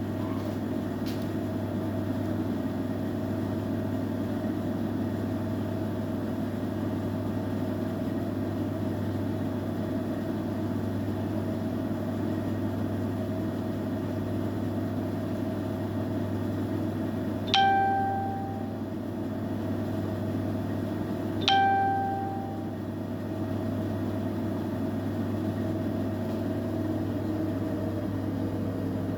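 Siemens iQ700 washing machine running with a steady electric hum. Two short electronic beeps sound about four seconds apart, past the middle.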